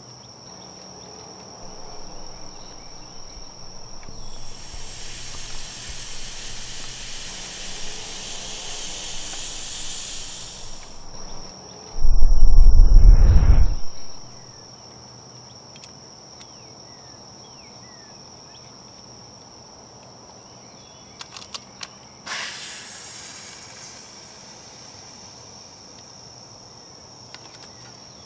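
Insects trilling steadily in a rural outdoor setting. A long hiss comes in about four seconds in, and a very loud, low rumble lasts about two seconds near the middle. A few sharp clicks and a short fading hiss follow later.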